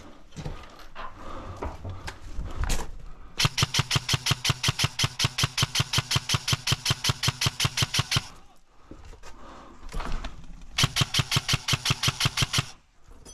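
Airsoft rifle firing on full auto in two long bursts, a fast even rattle of shots: the first lasting about five seconds, the second about two. Before the first burst there is some shuffling and a single knock.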